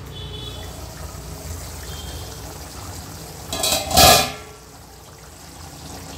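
Thick masala curry with liver bubbling as it simmers in a pan. A brief loud burst of noise comes about three and a half seconds in.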